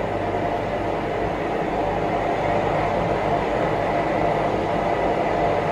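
Portable gas canister stove burner running with a steady hiss under a small saucepan.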